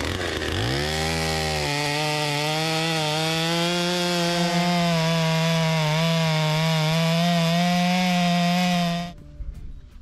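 Gasoline chainsaw revving up to full throttle and running at high speed as it cuts through a squared white oak log. The engine note climbs over the first second or so, then holds steady until it cuts off suddenly about nine seconds in.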